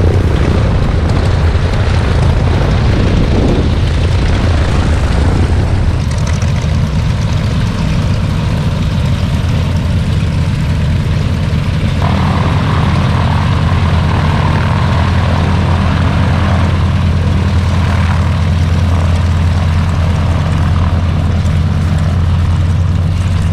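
Propeller biplanes taxiing, their piston engines running in a steady low drone. The sound shifts abruptly twice, about six and twelve seconds in.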